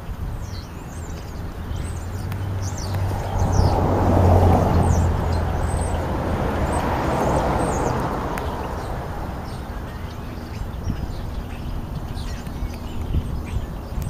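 A car passing on the street, its noise swelling and then fading over several seconds, with small birds chirping throughout.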